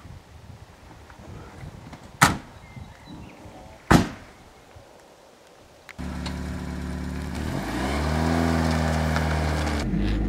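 Two car doors slam shut, about two and four seconds in. Then a first-generation Fiat Panda's engine runs as the car pulls away, its pitch rising briefly as it gathers speed and then holding steady.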